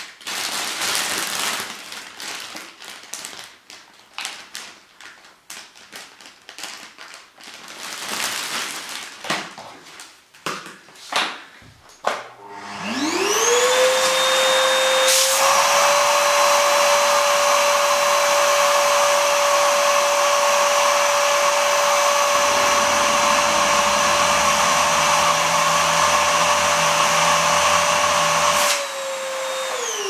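Plastic vacuum storage bag crinkling and rustling as it is smoothed by hand. About twelve seconds in, a vacuum cleaner motor starts with a rising whine and runs steadily while the hose nozzle draws the air out of the bag through its one-way valve. Near the end the motor is switched off and winds down, its pitch falling.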